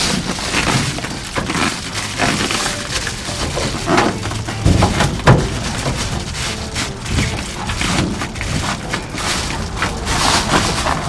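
Reflective foil bubble-wrap insulation crinkling and rustling as it is pushed, pressed and slid against a van's bare sheet-metal wall, in irregular crackles with a few dull knocks about four to five seconds in.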